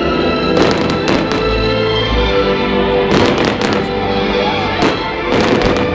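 Fireworks going off in clusters of sharp bangs, a few about a second in, more around the middle and a last group near the end, over music with held notes.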